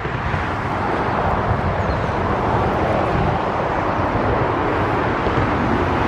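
Steady road traffic noise, vehicle tyres and engines on the road over the bridge, holding level throughout.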